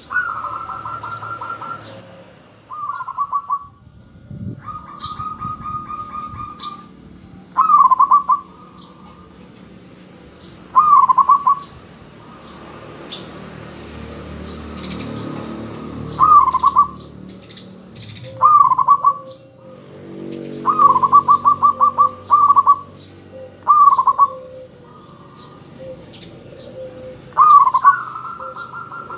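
Zebra dove (perkutut) cooing: about ten phrases of rapid, trilled coos, each half a second to two seconds long, repeated every few seconds. Faint high chirps sound in the background.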